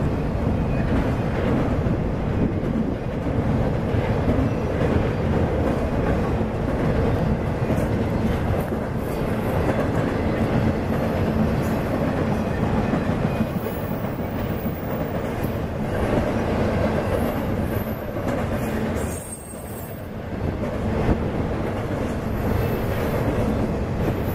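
Intermodal freight train rolling across a steel truss bridge: a steady rumble and clatter of flatcars and well cars passing over the rails, briefly quieter a little before the end.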